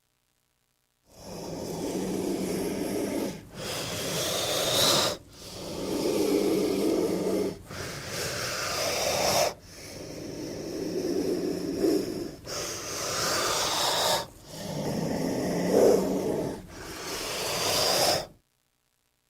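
King cobra hissing: about eight long, breathy hisses, each around two seconds long, following one another with only brief breaks, starting about a second in.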